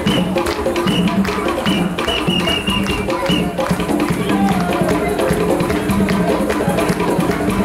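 Live hand drumming on tall skin-headed African drums in a steady, fast rhythm, with the rattle of shakers held in the drummer's hands.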